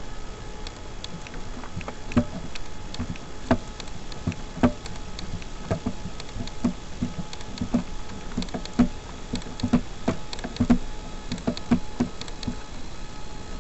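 Sharp knocks and taps from hands handling the NexSTAR 46 model airplane close to its onboard camera, about two a second for most of the stretch, over a faint steady hum.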